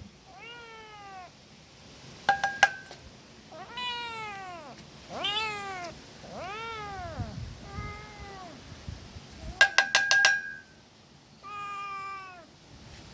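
Cats meowing: about six separate meows, each rising and then falling in pitch. Twice, about two seconds in and about ten seconds in, a short, louder burst of rapid pulses at a steady high pitch cuts in.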